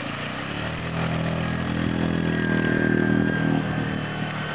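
Romet Komar moped's small two-stroke engine revving hard as it is ridden into deep muddy water, pitch and level climbing from about a second in, then easing off near the end.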